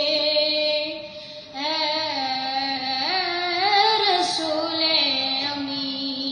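A boy's solo voice singing a naat with no instruments: long held notes with wavering ornaments, broken by a short breath about a second in.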